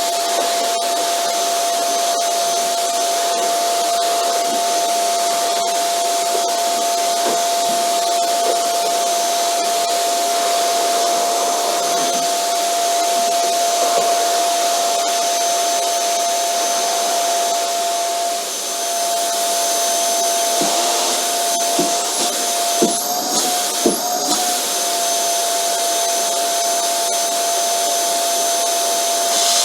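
Vacuum cleaner running steadily: a constant motor whine over a rush of airflow. Two sharp knocks about three quarters of the way through, with the whine wavering briefly.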